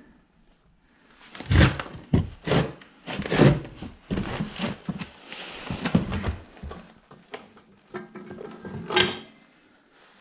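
Massey Ferguson two-stage clutch assembly being handled and fitted against the flywheel: a run of irregular clunks, knocks and scrapes, with a short ringing tone near the end.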